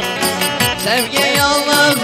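Instrumental break in a Turkish folk song: a bağlama and a Korg keyboard play a wavering melody over a steady programmed drum beat of about four ticks a second, with falling low drum hits.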